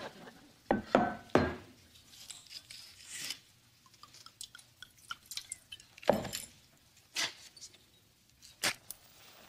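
Kitchen clatter from a pan and a liquor bottle being handled on a stovetop and counter: a few scattered knocks, with a short run of liquid glugging from the bottle into the pan about four seconds in.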